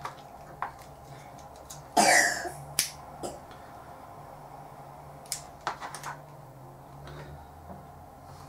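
Light clicks and taps of hands handling a rope end and a metal awl on a plastic cutting mat, with one louder short rasp about two seconds in.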